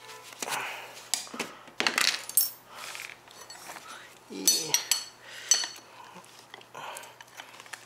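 Screwdrivers levering a tight tyre bead onto an electric scooter wheel rim: a run of irregular scrapes and metal clinks, a couple of them ringing brightly about halfway through.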